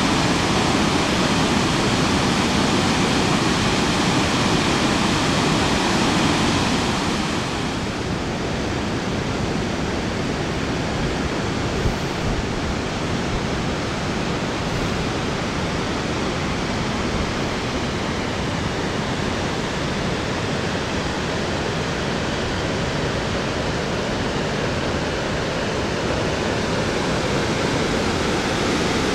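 Steady rush of white water from the Chaudière River's falls and rapids, easing slightly about seven seconds in and then holding even.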